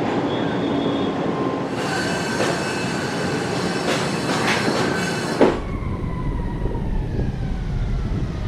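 Construction-site machinery and metalwork: a high metallic squeal with several sharp knocks, then a low rumble with a slowly falling whine about halfway through.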